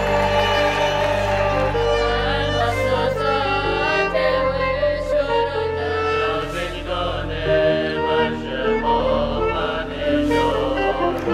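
Music with singing over sustained low notes, the low notes shifting a few times.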